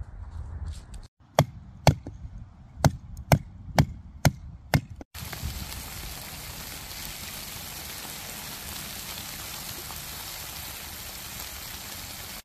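Seven sharp chopping strikes, mostly about half a second apart: a knife chopping on a cutting board. Then, about five seconds in, a wood campfire in a metal fire pit takes over with a steady hiss and faint crackling.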